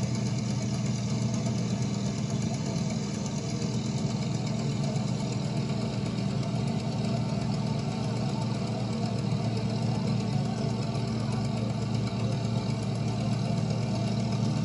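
Dodge Ram dually pickup engine running steadily at low speed, towing a loaded trailer.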